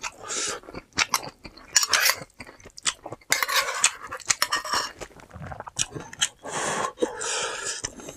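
A person eating close to the microphone: chewing and crunching food, with many short clicks and a few longer noisy stretches.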